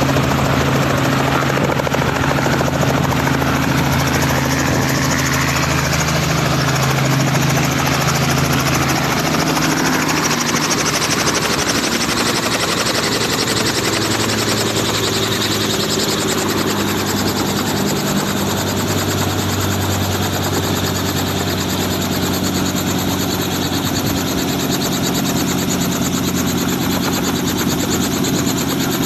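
Light helicopter running on the helipad with its engine and rotor going steadily. Its low tone drops to a lower pitch about ten seconds in.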